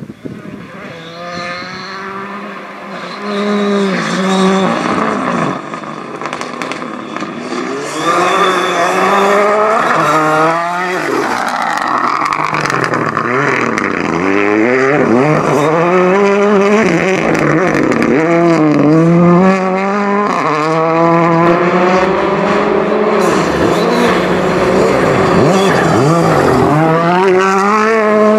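Rally car being driven hard on a gravel stage: the engine revs climb and drop again and again through gear changes and lifts, getting louder from about 3 seconds in and again at about 8 seconds as it comes closer.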